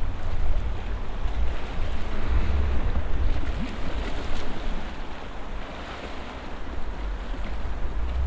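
Wind buffeting the microphone in uneven gusts over a steady rushing noise.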